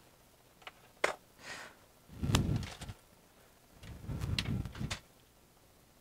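Graphics cards being handled and set down on a workbench: a few sharp clicks and knocks, a brief rustle, then two low thuds with clatter, about two seconds in and again around four seconds.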